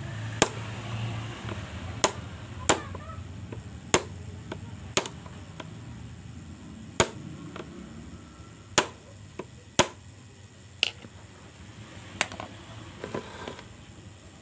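About a dozen sharp knocks at uneven intervals, roughly one every second or so: the side of a flat-head screwdriver being struck to tighten a blender's drive gear, which screws on counterclockwise.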